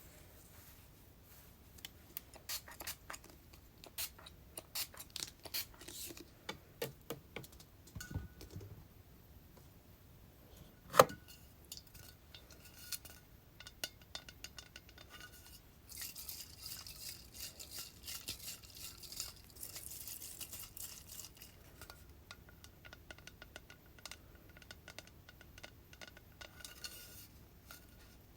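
Fingernails tapping on hair-product bottles and jars: irregular light taps and clinks, one sharper click with a short ring about a third of the way in, and a few seconds of scratchy rustling near the middle.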